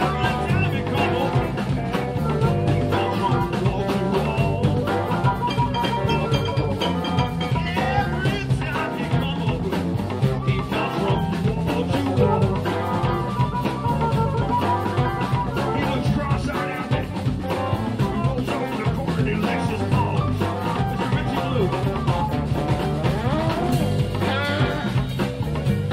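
Live electric blues band playing, with electric guitar, bass and drum kit over a steady beat, and a lead line that bends in pitch.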